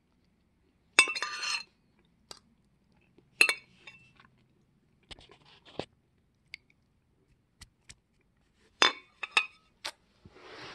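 A metal fork clinking against a dinner plate: a ringing clink about a second in, another a couple of seconds later, then lighter taps and a further clink near the end.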